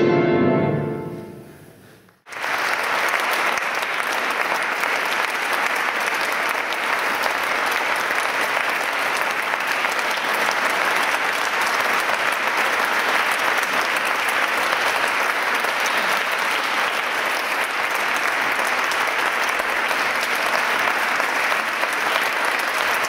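The last chord of an accordion, violin and piano trio fades out over about two seconds and breaks off sharply. Then an audience applauds steadily.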